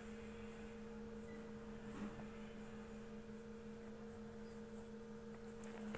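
A faint steady hum holding two pitches, a low one and one about twice as high, unchanging throughout.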